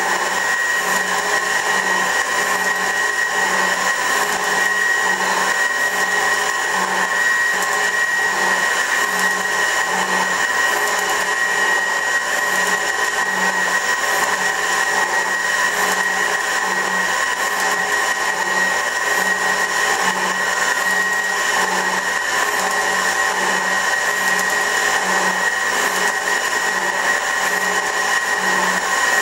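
A Värnamo metal shaper running as its ram strokes back and forth to plane the face of a grinder tool rest. It makes a steady mechanical whine with a regular low pulse from the strokes.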